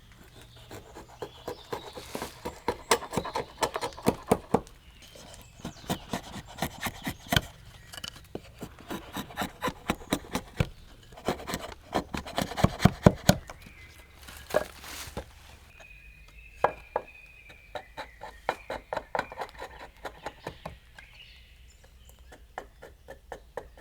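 Quick runs of short wooden knocks and scrapes, several a second, coming in bursts with brief pauses between them, like hand work on wood.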